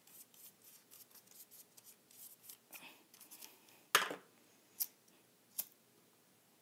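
Paintbrush dabbing melted candle wax onto a folded paper boat: a rapid run of soft brushing and paper-rustling strokes. About four seconds in comes a sharp knock as the brush is set down on the wooden table, then two short clicks.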